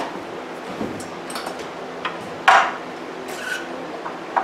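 Honda EB5000 portable generator running steadily while its output is being tested after the brushes were cleaned, with a short sharp knock about halfway through.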